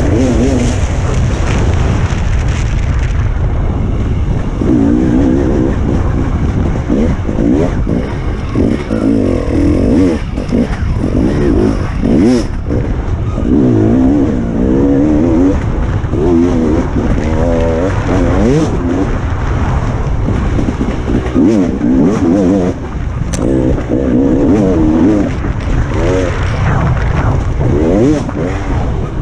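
Enduro dirt bike engine revving up and down again and again as the rider works the throttle through the gears on a twisting trail, heard close from the rider's helmet camera. A few brief sharp knocks cut through the engine.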